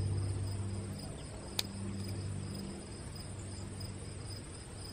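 Insects chirping steadily in a fast, even pulse, over a low steady hum that fades out near the end. One sharp click sounds about a second and a half in.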